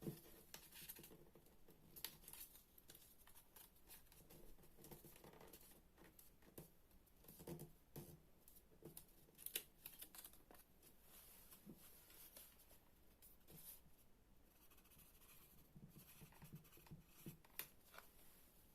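Sheet of paper being handled, folded and creased by hand: faint, irregular crinkles, rustles and small taps.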